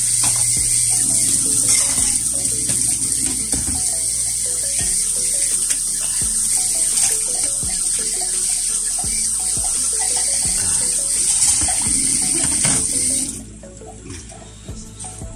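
Tap water running steadily into a sink while plates are washed by hand, with occasional knocks; the water is shut off suddenly about 13 seconds in. Faint background music plays underneath.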